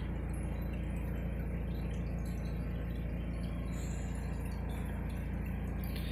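Steady low hum of room background noise, unchanging throughout, with nothing else standing out.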